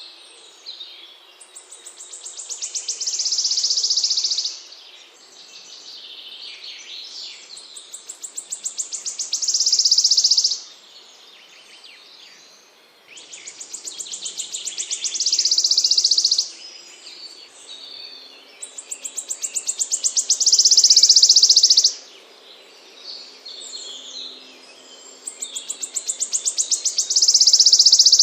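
A small songbird singing a repeated phrase: a run of high notes that quickens and grows louder into a loud, high trill, about three seconds long, given five times at intervals of five to six seconds. Fainter chirps sound between the phrases.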